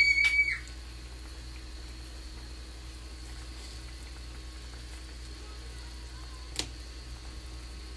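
Pork back-bone and kimchi stew boiling steadily in a pan, a soft continuous bubbling over a faint steady hum. A brief high tone is the loudest sound at the very start, and a single click comes near the end.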